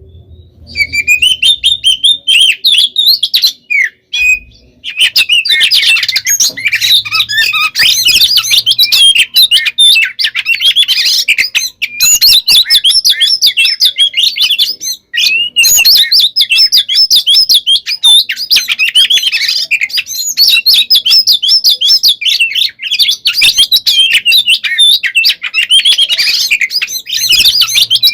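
Oriental magpie-robin (kacer) singing in full aggressive fighting song, a fast, dense stream of high chirps and trilled notes, broken by short pauses near the start, about four seconds in and about fifteen seconds in. This is the territorial challenge song that provokes other males to answer.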